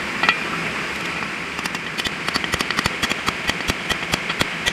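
Sharp, quick metallic clicks and taps, several a second from about a second and a half in, as new bearings and metal gearbox parts are handled and fitted, over a steady rushing hiss.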